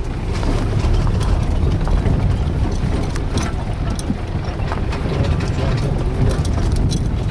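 A moving vehicle heard from inside its cabin: a steady low engine and road rumble with scattered light clicks and rattles.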